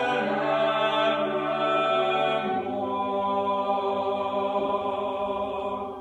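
A choir singing a long held chord at the end of a hymn, the lowest voice moving to a lower note about halfway through, then releasing together near the end.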